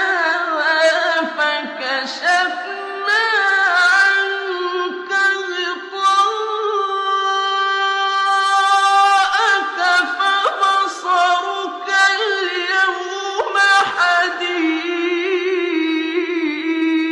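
Quran recitation: a single male voice in melodic, ornamented chant, holding a long note for about three seconds in the middle.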